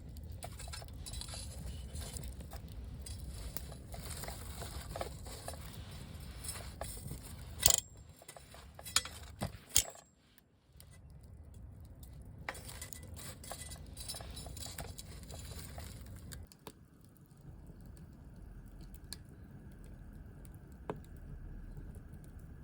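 Firewood burning, crackling with many small pops and a few sharp, louder snaps about eight to ten seconds in, over a steady low rumble.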